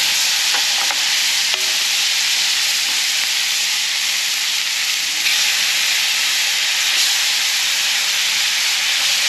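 Masala-coated fish frying in hot oil in a pan: a steady sizzle.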